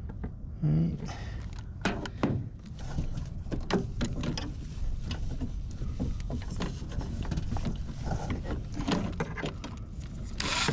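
Scattered light clicks and knocks of metal parts and tools being handled while fitting a clutch pedal assembly, with a short rustling burst near the end.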